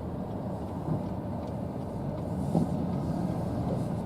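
Road and engine noise heard from inside a moving car: a steady low rumble, with a couple of light knocks about one and two and a half seconds in.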